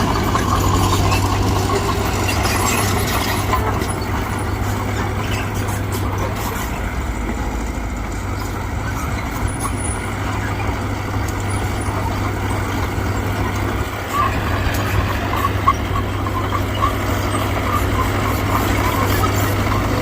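Mitsubishi BD2G bulldozer's diesel engine running steadily while working, with a brief dip about fourteen seconds in.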